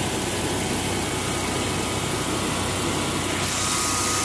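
Early-generation Generac home standby generator engine running steadily. A faint high whine comes in about three and a half seconds in.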